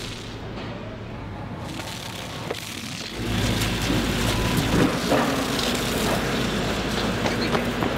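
City street ambience dominated by steady traffic noise, with scattered small knocks and clicks. It turns abruptly louder and denser about three seconds in.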